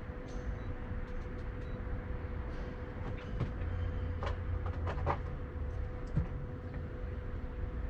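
A few light clicks and knocks from hands handling tools, over a steady low rumble and a constant hum.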